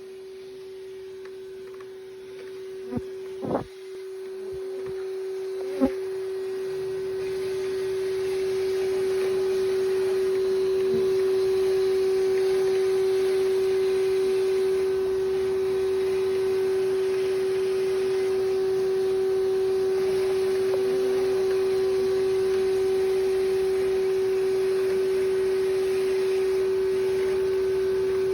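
Bee vacuum running with a steady, even-pitched motor hum. A few sharp knocks come in the first six seconds, then a rushing of air and bees builds up and holds.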